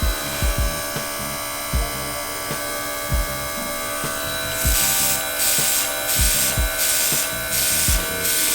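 Cordless air compressor running with a steady motor whine, feeding an airbrush. From about five seconds in, the airbrush gives a series of short hissing spray bursts. Deep low thumps sound every second or so underneath.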